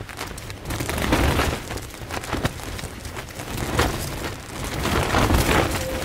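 Strong wind buffeting a tent, the fabric flapping in many quick snaps over a low rumble of wind on the microphone. Gusts swell about a second in and again near the end.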